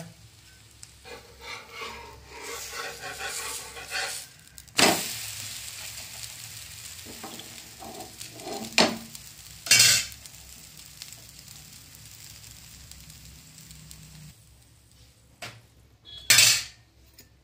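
Chakuli pitha, a rice-batter pancake, sizzling in a little oil in a non-stick frying pan, with a spatula scraping under it and a few sharp clinks and knocks of metal on the pan as it is turned and lifted onto a steel plate.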